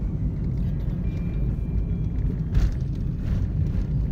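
Steady low rumble of tyre and engine noise inside a moving car's cabin, with a short knock about two and a half seconds in.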